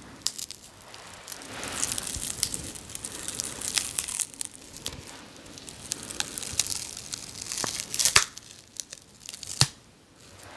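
Plastic wrapping around a bath bomb being handled close to the microphone: irregular crinkling and crackling, with a couple of sharper snaps near the end.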